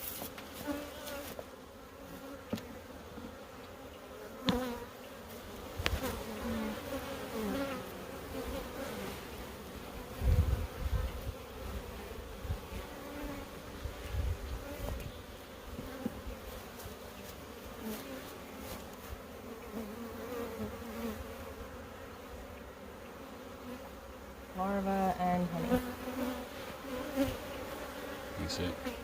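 Many honey bees buzzing around an open hive, a dense, wavering hum, with one bee buzzing close by near the end. A few low thumps and clicks break in, the loudest about ten seconds in.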